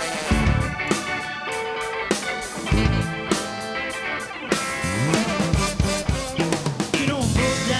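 Live rock band playing an instrumental passage, with drum kit hits, guitar and bass.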